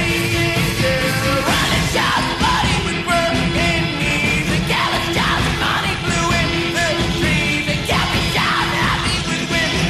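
Loud rock music with shouted, yelled vocals throughout.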